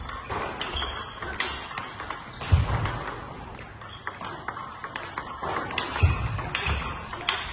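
Table tennis ball being hit back and forth in a fast rally: quick sharp clicks of the ball on the paddles and the table, with a few dull thumps in between.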